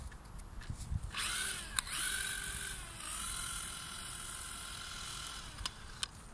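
Cordless drill spinning a kite-line reel to wind in the line: a steady motor whine that starts about a second in, dips briefly midway, and stops with a click near the end.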